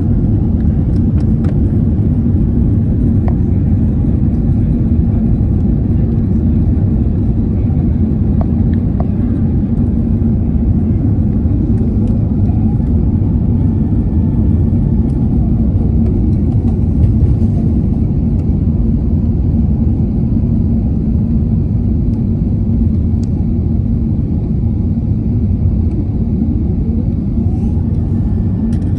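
Steady low rumble of engine and airflow noise inside an Airbus A380's cabin during descent, with a steady hum under it and a few faint whines sliding in pitch.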